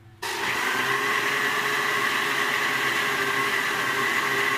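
Fresh countertop blender switching on suddenly and running steadily with a constant whine, grinding cooked grated coconut in water to make coconut milk.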